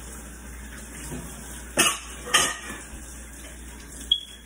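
Two sharp clatters of kitchenware about half a second apart, near the middle, then a lighter click near the end.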